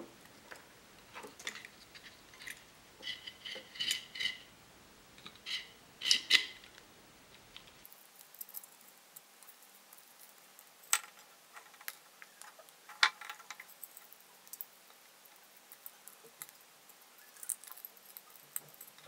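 Scattered small clicks, taps and light clinks as a Seymour Duncan SH-13 Dimebucker humbucker pickup is handled and taken apart by hand: its plastic cover, metal parts and pole screws knocking together. A few taps ring briefly and metallically, mostly in the first several seconds.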